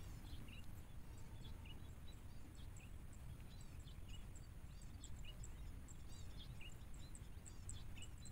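Small birds chirping: many short, high calls coming quickly one after another, over a low steady rumble.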